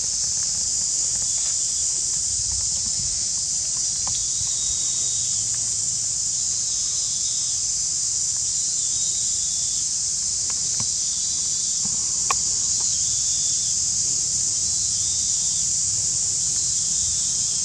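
Steady, high-pitched chorus of insects droning without a break, with a fainter call repeating about once a second and a few soft clicks, one sharper click about twelve seconds in.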